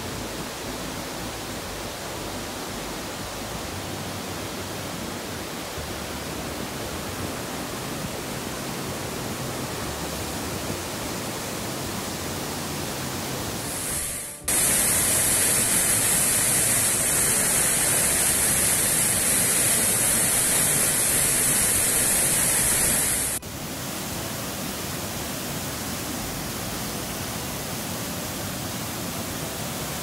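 Rushing water of a waterfall and its rapids, a steady even rush of white water. A little past halfway it turns abruptly louder and hissier for about nine seconds, then drops back just as suddenly to the softer rush.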